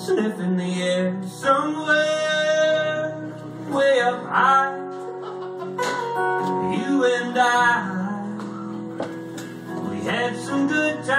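A man singing a song to his own strummed acoustic guitar, holding some long notes.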